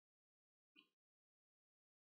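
Near silence, broken by one faint, short tick a little under a second in.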